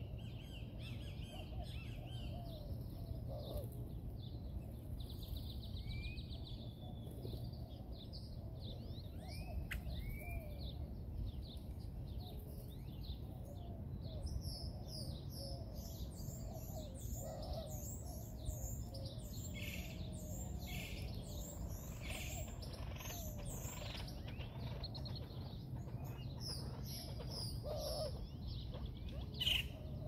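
A flock of birds chirping and calling, with a few sliding whistles early on and many quick high chirps through the second half, over a steady low hum. A single sharper, louder call comes just before the end.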